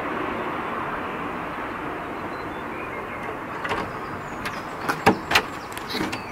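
Steady noise of a car cabin, with several sharp clicks and knocks in the last couple of seconds; the two loudest knocks come close together about five seconds in.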